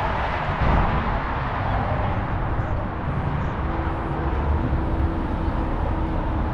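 Steady low rumble of vehicle traffic, with a faint steady hum coming in about halfway through.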